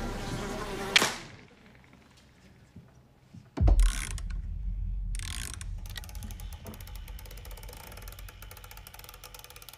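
A sharp hit about a second in, then a heavy low thud. After that comes the key of a clockwork music box being wound: a fast run of small ratchet clicks.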